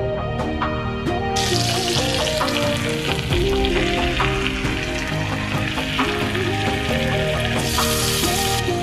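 Floured snapper fillets sizzling in hot olive oil and butter in a frying pan. The sizzle starts about a second and a half in and swells briefly near the end as another fillet is laid in. Background music plays underneath.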